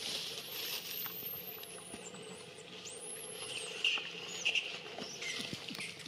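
Infant long-tailed macaque giving thin, high-pitched squeaks and squeals that glide up and down in pitch, several in a row, with two sharper squeaks just past the middle.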